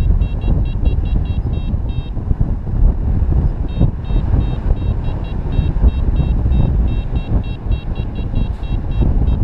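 Wind rushing over the microphone in flight, with a paragliding variometer beeping rapidly, about four to five short beeps a second. The beeping stops briefly about two seconds in and then starts again: the climb tone of a glider rising in a thermal.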